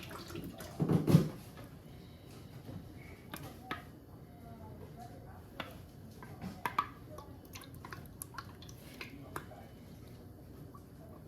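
Light kitchen clatter: scattered clicks and taps of a utensil against a container and dishes, with a brief louder burst about a second in.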